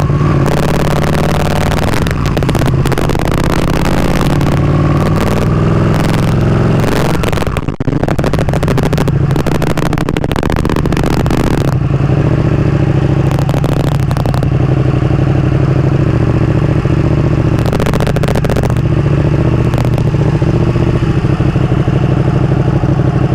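Motorcycle engine running steadily at low road speed, heard from on the bike, with another motorcycle just ahead.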